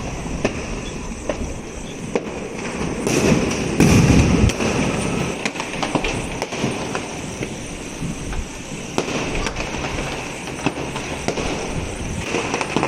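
Fireworks going off: a steady crackle of firecrackers with many sharp pops, and one loud, deep boom about three to four seconds in.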